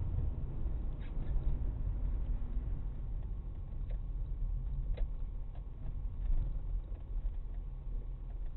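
Steady low rumble of a car driving, heard from inside the cabin, with a few faint clicks about a second in and again around four and five seconds in.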